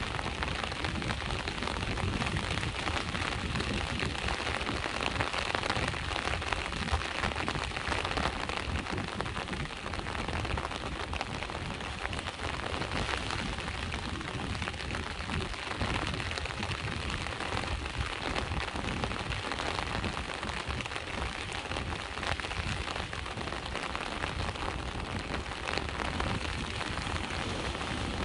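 Steady rain falling: a dense, even hiss of drops with many small individual drop hits throughout.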